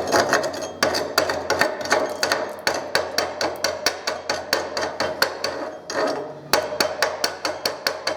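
Chipping hammer striking a freshly laid aluminum stick-weld bead to knock off the slag: rapid metallic strikes, about three to four a second, in runs broken by a couple of short pauses.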